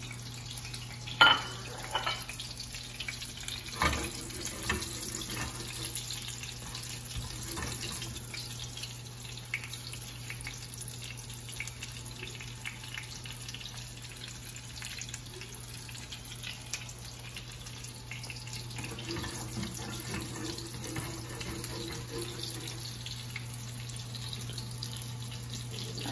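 Breaded chicken cutlets sizzling steadily as they shallow-fry in hot oil in a stainless steel skillet, over a low steady hum. About a second in comes a sharp clatter, the loudest sound, as a plate is set down, with a few lighter knocks a few seconds later.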